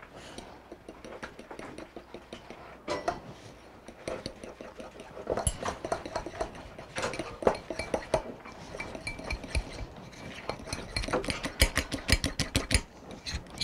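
Metal spoon beating a wet egg, sweetener and oil mixture in a bowl, clinking and scraping against the sides in runs of quick strokes that come fastest near the end.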